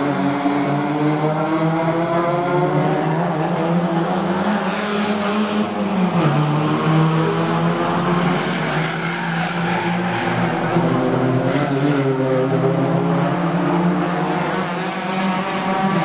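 Several touring race cars' engines revving hard as the cars accelerate past one after another, the pitch climbing and stepping down once about six seconds in.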